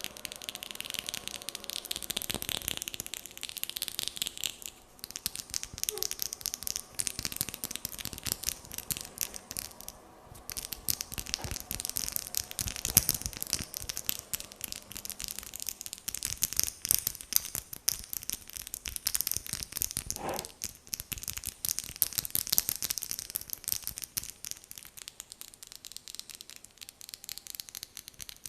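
Close-miked fingernails tapping rapidly and lightly on skin, a dense run of crisp clicks that thins out and picks up again.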